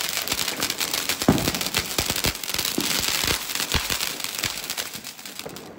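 Ground fountain firework (anar) spraying sparks: a dense hiss packed with rapid crackling pops, dying down near the end.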